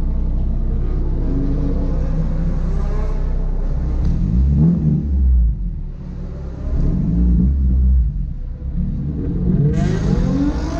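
Car engine revving and accelerating, its pitch climbing and falling as the throttle is opened and lifted, with brief dips in level about halfway through and again later on.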